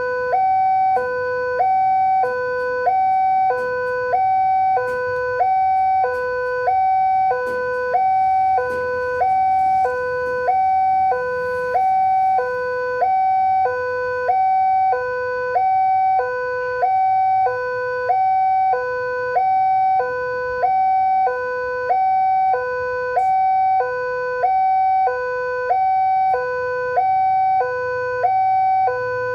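Railway level-crossing warning alarm sounding from its pole-mounted loudspeaker: a steady electronic two-tone signal, high and low notes alternating about once a second each. It warns that a train is approaching while the barrier is down.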